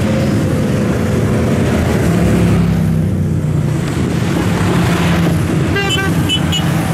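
Steady drone of passing motor traffic, with short horn toots about six seconds in.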